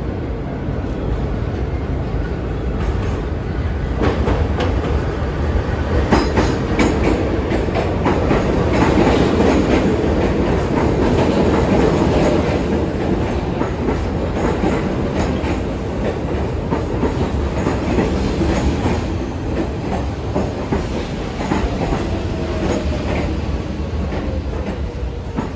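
R46 subway train entering the station: a heavy steady rumble with the wheels clicking over rail joints, loudest as the cars run past. Near the end a whine falls steadily in pitch as the train slows.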